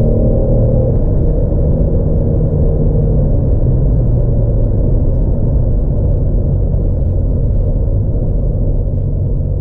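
Cabin sound of a 2017 Renault Megane GT Wagon at about 100 km/h: the 1.6-litre turbo four-cylinder's engine note drops away about a second in, leaving a steady low rumble of the car running at speed.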